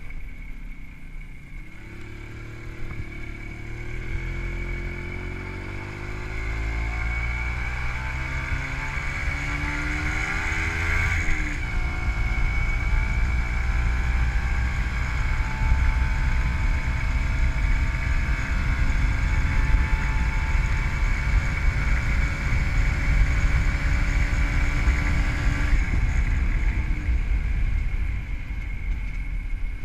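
WSK 125 two-stroke single-cylinder engine, fitted with a Dellorto PHBG carburettor and CDI ignition, pulling under throttle. Its pitch rises steadily for about ten seconds, dips sharply at a gear change, then holds near-steady cruising revs until the throttle is eased off a few seconds before the end. Low wind rumble on the microphone runs underneath.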